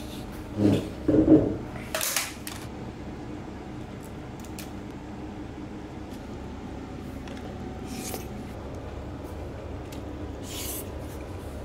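Clear plastic takeaway food box being handled and opened: crackling plastic and a sharp snap of the lid in the first couple of seconds, then a few soft rustles over a steady hiss.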